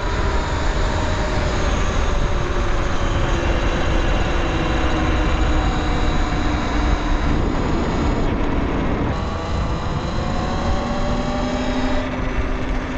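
Wind buffeting the camera microphone while riding a Talaria Sting R electric dirt bike, over the whine of its electric motor and drive chain gliding up and down in pitch as the speed changes.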